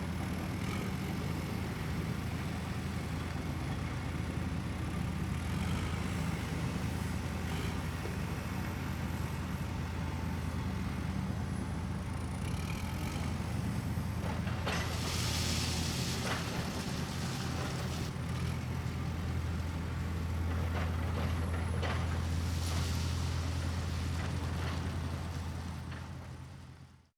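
Heavy construction machinery's engine running with a steady low drone, with two bursts of hissing in the second half. The sound fades out at the very end.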